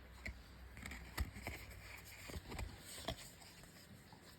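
Faint clicks and soft rustling of trading cards being handled and slid from one to the next.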